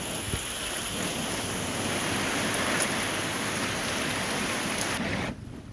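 Heavy rain falling steadily as an even hiss, cutting off suddenly near the end.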